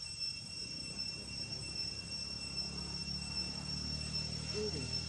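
Steady high-pitched insect chorus, holding two constant tones. A low rumble swells under it from about halfway through.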